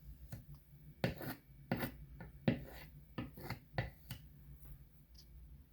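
Table knife scraping thick peanut butter: a series of short rasping strokes, thinning out near the end.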